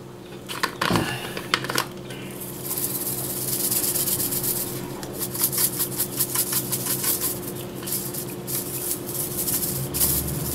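Dried basil being shaken out of a spice jar through its shaker lid: a fast, steady rattling hiss of herb flakes, after a few sharp clicks in the first couple of seconds.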